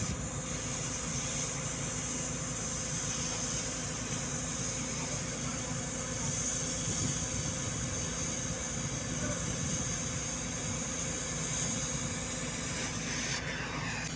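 Oxy-fuel gas cutting torch hissing steadily while cutting through a steel checker plate, over a constant low machinery hum; the hiss eases slightly near the end.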